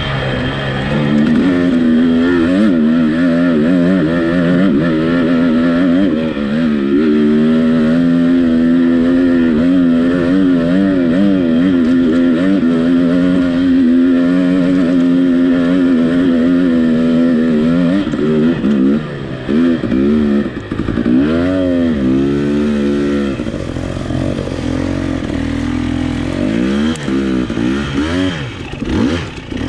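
Dirt bike engine pulling steadily under load up a steep grassy hill climb. From about eighteen seconds in, the revs rise and fall in repeated short bursts as the throttle is blipped on the steep, rough section.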